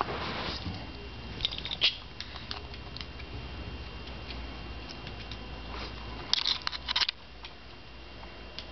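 Schnauzers moving about on a hardwood floor close to the microphone: a brief rustle at the start as fur brushes past, then two short clusters of light clicks and taps, about a second and a half in and again around six and a half seconds in.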